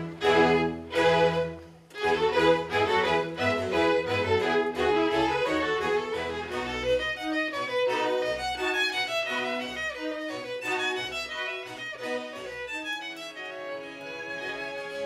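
Solo violin playing with a chamber string orchestra and harpsichord: two loud full chords open, a short break follows near two seconds, then the violin runs on in quick notes over the ensemble.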